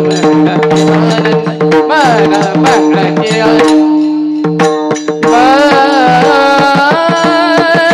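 Devotional bhajan music: a male singer's wavering, drawn-out melody over a steady held drone, with hand-drum strokes and small hand cymbals (taal) keeping time. The voice drops out for about a second near the middle, then comes back in.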